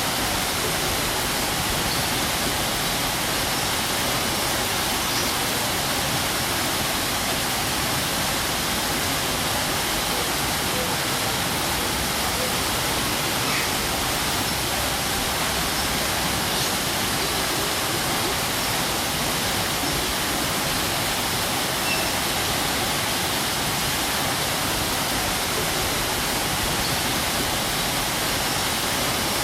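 Waterfall pouring steadily, a constant full rushing of falling water with no change in level.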